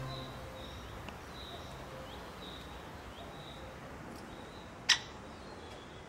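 Background music fades out at the start; then faint, short, high chirps of small birds repeat, and a single sharp click-like note, the loudest sound, comes about five seconds in.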